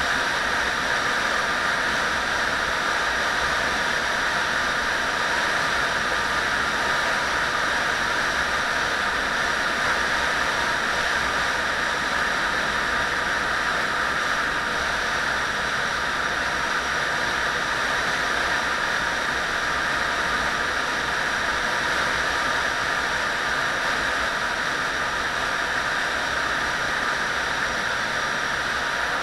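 Motorcycle riding at a steady speed: an even rush of wind on the microphone mixed with road noise, with no change in pace.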